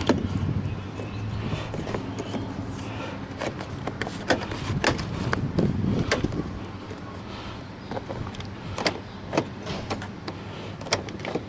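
Plastic interior door trim on a 2013 Toyota RAV4 being pressed and pushed into place by hand, with a dozen or so sharp clicks and snaps, spread unevenly, as the trim clips seat.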